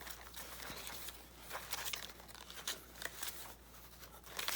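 Papers rustling and shuffling as hands sort through a box of paper scraps and ephemera, with irregular crinkles.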